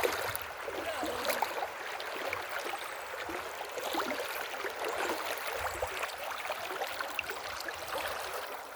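Flowing water, like a small stream, with a steady hiss and scattered small splashes.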